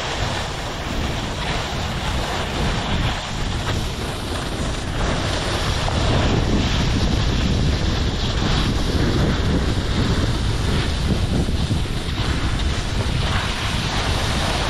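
Wind buffeting the microphone while skiing downhill, over a steady hiss of skis sliding on snow.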